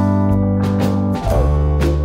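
Background music with a steady beat, the chord changing about a second in.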